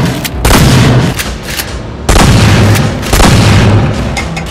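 Three loud shotgun blasts, the first about half a second in and the other two about a second apart near the middle, each trailing off in a decaying tail.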